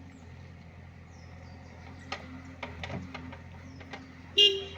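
Diesel engine of a JCB 3DX backhoe loader running steadily, with a few sharp clicks and knocks in the second half. A short, loud vehicle-horn toot sounds near the end.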